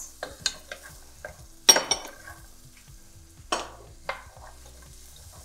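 Wooden spoon stirring diced carrots and onions in a metal stockpot, scraping the bottom and knocking against the pot a few times, the loudest knock a little under two seconds in.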